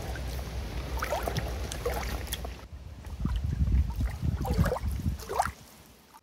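Wind rumbling on the microphone with a few short chirps that rise in pitch over it, the loudest near the end; the sound drops away briefly near the middle.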